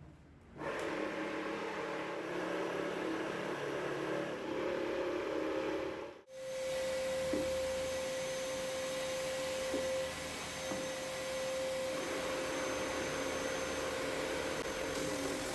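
Homemade drum sander running on its electric motor and belt drive, a steady machine hum with a whine. It breaks off abruptly about six seconds in, then runs on with a clear, steady whining tone.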